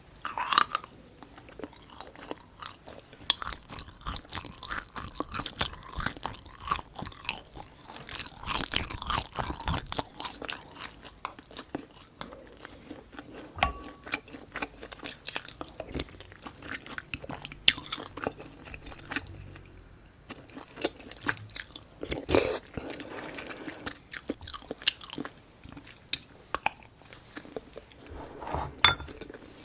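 Close-miked eating: a person chewing and biting food, a busy irregular run of small wet clicks and crunches.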